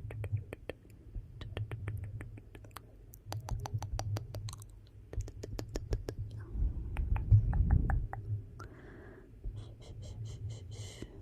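Wood fire burning in a fireplace, crackling with many sharp pops and snaps over a low, steady rumble of the flames. The rumble swells about two thirds of the way through.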